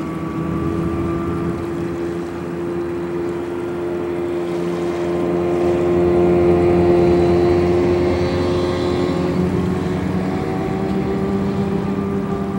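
Hovercraft's engine and ducted thrust fans running at speed across the water: a steady hum with a pitched engine tone, growing louder about halfway through and then easing slightly.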